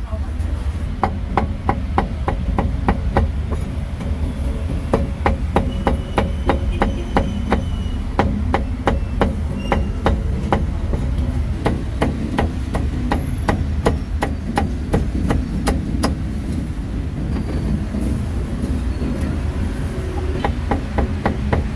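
Steel meat cleaver chopping roast pork on a thick round wooden chopping block: quick runs of sharp chops, about three or four a second, pausing for a few seconds near the end before a few more.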